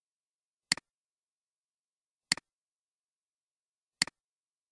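Three computer mouse clicks about a second and a half apart, each a sharp double tick of the button pressing and releasing.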